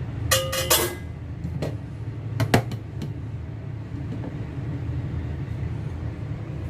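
Cookware being handled: a quick clatter with a short ringing tone about half a second in, then a few single knocks over the next couple of seconds, over a steady low hum.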